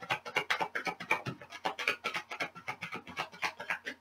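A deck of oracle cards being shuffled by hand: a rapid, uneven run of card flicks and slaps, several a second, that stops abruptly near the end.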